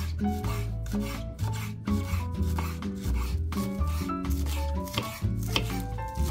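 Chef's knife chopping spring onion and parsley on a bamboo cutting board, in quick repeated strokes of the blade against the wood, over background music.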